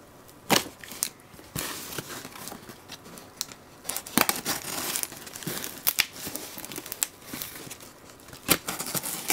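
Packing tape being slit and ripped off a cardboard shipping box: an irregular series of sharp rips and crackles with crinkling between them, starting about half a second in. The box is heavily taped.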